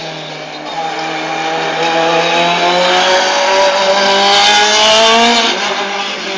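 Open-cockpit sports prototype race car's engine accelerating past at high revs, its note climbing steadily and getting louder, then dropping sharply about five and a half seconds in as the car pulls away.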